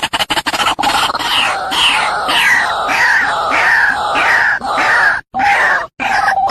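White-breasted waterhen calling: a rapid stuttering series gives way to loud, harsh calls repeated about twice a second, each sliding down in pitch. Two brief dropouts to silence come near the end.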